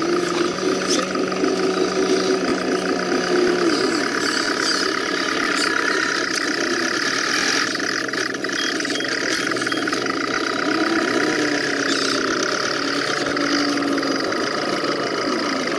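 Electric motors and geartrains of scale RC crawler trucks whining as they creep over rough dirt, the pitch rising and falling with the throttle.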